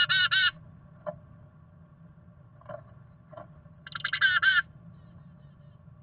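Black-capped chickadee calling, two short bursts of quickly repeated notes: one right at the start and one about four seconds in, with a few faint taps in between.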